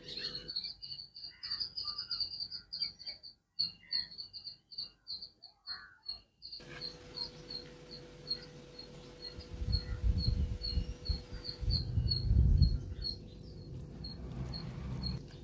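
A small creature's high chirp, repeated several times a second without a break. Between about nine and thirteen seconds in, a low rumble rises under it and then fades.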